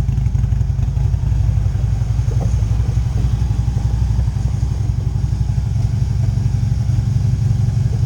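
Harley-Davidson Road Glide Special's V-twin engine idling in neutral: a loud, steady, fast-pulsing low rumble.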